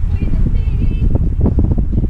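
Wind buffeting the microphone in a steady, gusty low rumble, with faint short high tones above it.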